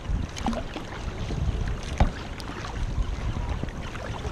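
Kayak paddling on the open sea: paddle blades splashing and water slapping against the plastic hull, with wind rumbling on the microphone. A sharper hit stands out about two seconds in.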